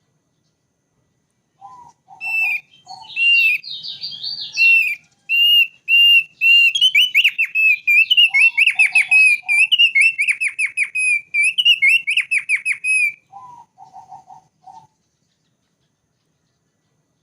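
Thick-billed white-eye (opior paruh tebal) singing: a run of repeated clear whistled notes breaking into fast trilled phrases, with short groups of low, hoarse notes between them. The song starts about a second and a half in and stops about two seconds before the end.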